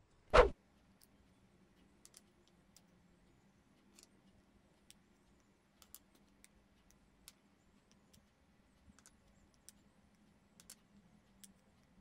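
A single loud, short thump about half a second in, then small magnetic balls giving faint, sparse clicks as they are pinched apart and snapped together into little clusters.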